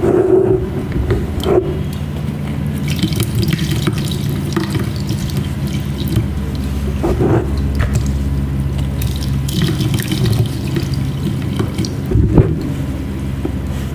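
Water running and trickling, as from a tap, with scattered small sharp clicks and splashes, a few louder ones standing out.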